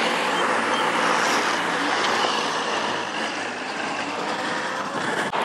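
Steady rush of wind and tyre noise from a dual-motor Varla Pegasus electric scooter ridden along a concrete sidewalk, with a single short click near the end.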